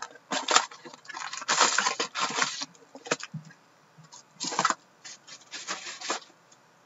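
Cardboard hobby box being opened and foil-wrapped trading-card packs handled: irregular bursts of crinkling and rustling, the longest about a second and a half in, dying away near the end.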